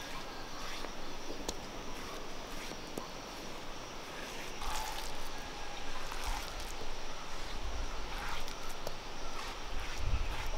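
Soft scraping and dabbing as coarse ground coconut paste is wiped off a stone roller and gathered by hand on a flat stone grinding slab (ammikkallu), with a few faint clicks and low soft thuds, over a steady outdoor background.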